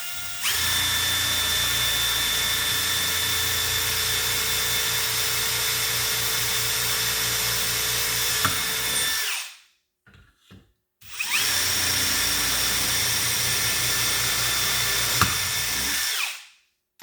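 Electric drill with a 4.5 mm bit boring the two handle holes through a door, guided by a door handle jig: a first steady run of about nine seconds, a short pause, then a second run of about five seconds, each with a high steady motor whine.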